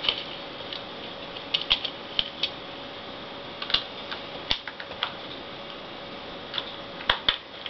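Small screwdriver driving a screw back into a Gateway NV4403 laptop's plastic case: irregular light clicks and taps.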